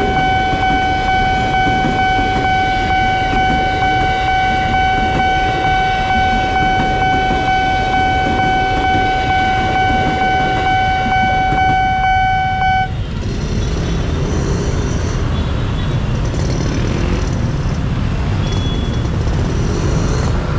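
A railway level crossing's electronic warning siren sounds one steady high tone over the rumble of a passing KRL electric commuter train. About 13 seconds in the siren cuts off suddenly and road traffic of motorcycles and buses takes over, with short horn toots.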